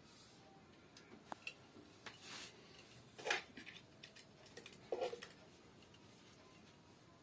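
Scattered light clicks and metallic taps of hand work on faucet fittings, with two louder clanks about three and five seconds in.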